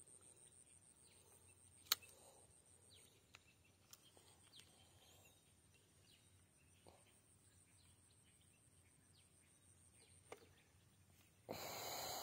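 Near silence on a quiet lakeshore: faint bird chirps over a steady high whine, with one sharp click about two seconds in and a brief burst of rustling noise, the loudest thing, near the end.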